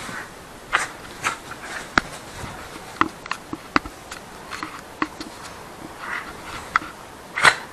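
Dog tugging and mouthing a knotted rope toy: a string of sharp clicks and knocks, with several short huffs of breath, the loudest near the end.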